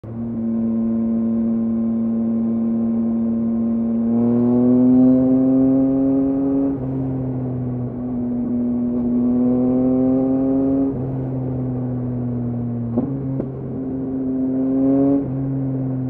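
Yamaha MT-09's inline three-cylinder engine through a LeoVince LV Race exhaust, under way on the road: a steady drone at first, then three pulls in which the pitch climbs, each ending in a sharp drop in pitch as the bike shifts up.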